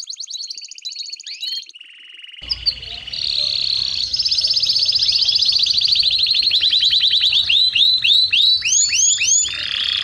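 Domestic canary singing: fast rolling trills of high, rapidly repeated notes, shifting to a lower trill about two seconds in and ending with a run of quick down-sweeping notes.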